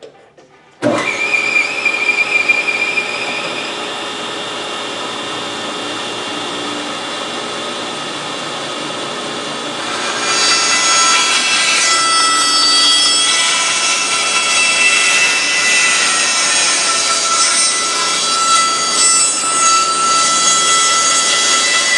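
Bandsaw switched on about a second in, its whine rising as it comes up to speed, then running steadily. From about ten seconds in it gets louder as the blade cuts a curve freehand through a board.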